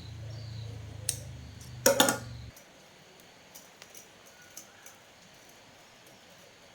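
A steady low electric hum that cuts off suddenly about two and a half seconds in, just after a short burst of metallic clattering. A single click comes about a second in, and a few faint ticks follow the cut-off.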